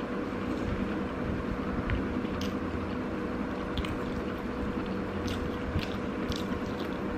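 Close-up eating sounds: scattered small clicks of chewing and of fingers picking rice off a banana leaf, over a steady low hum.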